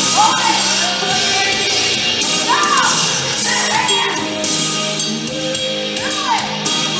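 Loud background rock music with vocals. A few short vocal cries rise and fall in pitch over the steady accompaniment.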